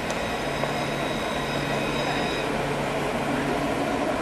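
Alstom Citadis tram approaching and rolling past on street track: a steady rumble with a thin high whine that stops about halfway through.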